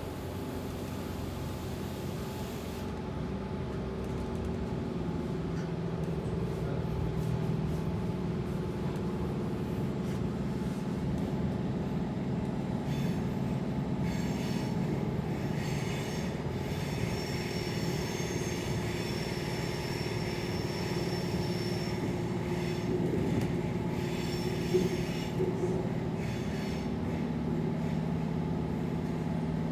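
Electric passenger train running between stations: a steady rumble with humming motor tones, gathering a little loudness early on, and a high wheel squeal that sets in about halfway through and fades a few seconds before the end.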